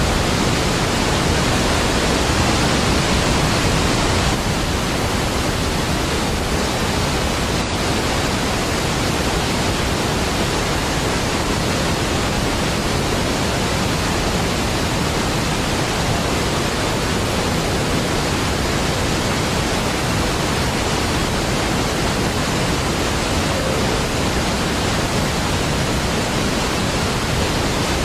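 Steady, dense rush of a large waterfall, even across low and high pitches, dipping slightly in level about four seconds in.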